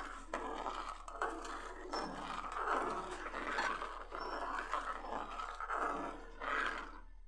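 Metal ladle stirring and scraping around an aluminium kadhai of hot grape jelly mixture, in uneven strokes.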